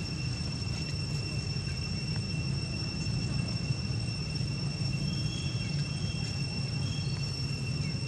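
Steady high insect drone, two held pitches without a break, over a constant low rumble; a few faint short chirps come in about halfway through.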